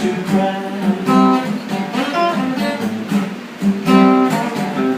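Acoustic guitar strumming chords, the opening of a song, with the chord changing about once a second.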